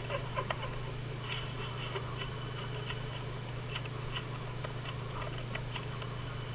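Quiet room tone with a steady low hum and faint, irregular ticks.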